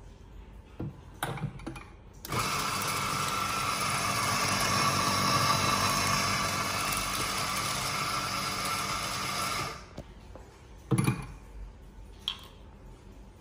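Victoria Arduino E1 Prima coffee grinder grinding espresso beans into a portafilter: a steady whirring that starts abruptly about two seconds in, runs for about seven and a half seconds and cuts off sharply. A few clicks come before it and a knock about a second after it stops.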